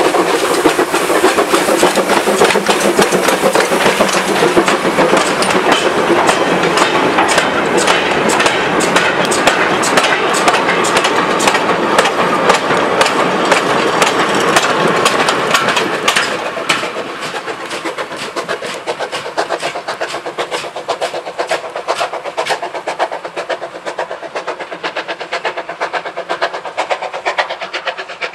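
Andrew Barclay 0-4-0 saddle tank steam locomotive working hard as it hauls a coal train past at close range, its exhaust loud over the clatter of the wagons and brake van on the rail joints. About halfway through the sound drops as the train draws away, the wheel clicks carrying on more faintly.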